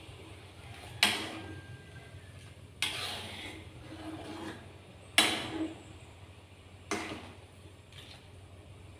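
Metal spatula knocking and scraping against a wok as food is turned: four sharp clanks, each followed by a short scrape, over a faint steady low hum.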